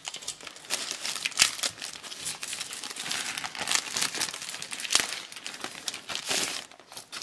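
Clear plastic bags of LEGO pieces crinkling and crackling as hands handle them, and the instruction booklet being pulled from its plastic wrapping. The crackles come in irregular bursts, with one sharper knock about five seconds in.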